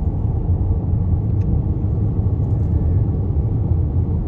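Steady road and engine rumble inside a car's cabin while it cruises at highway speed.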